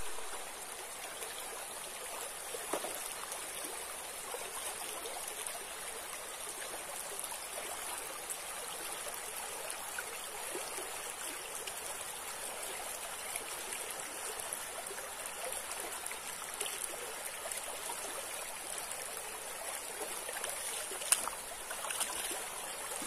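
Shallow rocky stream flowing, a steady rush of running water, with a single sharp knock about 21 seconds in.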